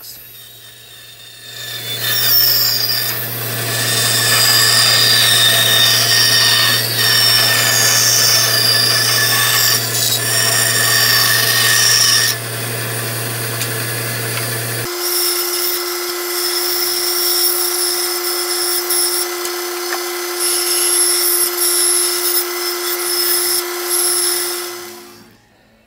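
Bandsaw running and cutting thick mahogany blocks round into bowl blanks, the rasping cut over the machine's steady hum. About halfway through the hum switches abruptly to a higher steady tone, and near the end the sound fades out.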